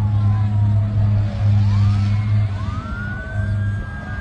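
Emergency-vehicle sirens wailing: several slow rising and falling tones that overlap, one climbing and holding high near the end, over a steady low hum.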